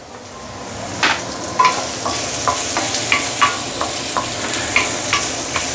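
Shiitake mushroom and ginger slices sizzling in hot oil in a stainless steel wok, stirred with a wooden spatula that taps and scrapes against the pan about twice a second. The sizzle swells over the first second.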